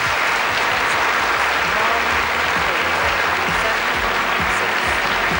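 An audience applauding steadily, with music faintly underneath.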